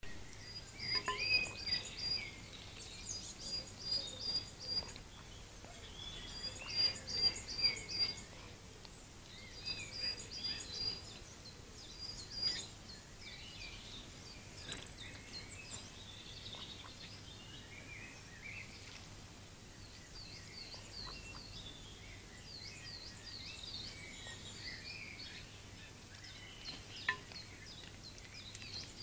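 Small songbirds singing: short runs of high, quickly repeated notes every few seconds, then a string of quick, high dipping notes in the second half.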